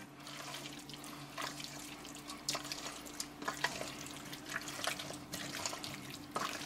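Thick, wet chicken pot pie filling being stirred with a spatula in a stainless steel mixing bowl: wet stirring sounds with irregular clicks and scrapes of the spatula against the bowl. A steady low hum runs underneath.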